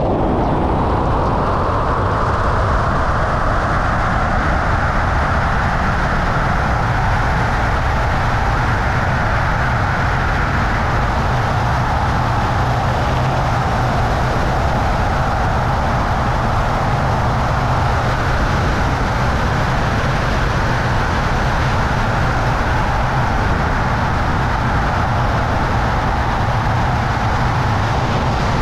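Loud, steady rush of air over the body-worn camera's microphone during a BASE jumper's fast flight along the cliffs, a continuous wind noise with a heavy low rumble that builds just as the flight begins.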